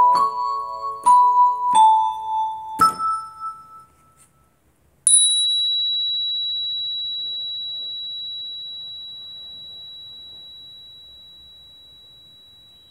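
Electronic keyboard playing a few high notes over the first three seconds, then falling silent; about five seconds in, a single very high note rings out and fades slowly.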